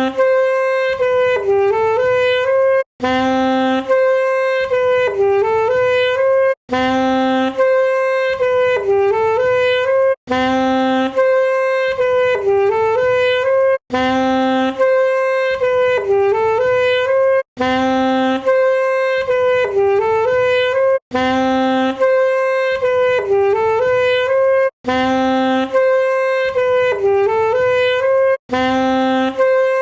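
Saxophone playing the same short phrase again and again, about every three and a half seconds, with a brief break between repeats. Each phrase opens on a short low note, holds a higher note, then dips and climbs back.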